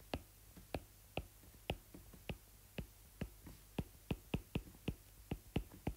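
Light, irregular clicks of a stylus tip tapping on a tablet's glass screen during handwriting, about three a second.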